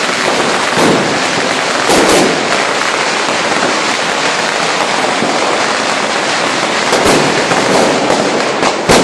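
Fireworks and firecrackers going off, a dense continuous crackling with louder sharp bangs about one, two, seven and nine seconds in.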